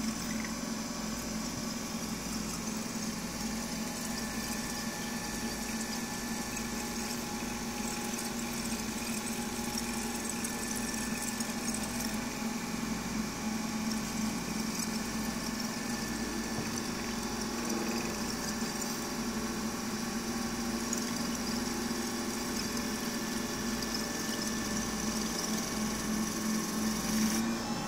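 Dictaphone Standard cylinder shaving machine running steadily while its cutter shaves a full-size wax dictation cylinder on the turning mandrel. It makes a steady, quiet hum with a fine hiss above it, purring smoothly on newly replaced belts.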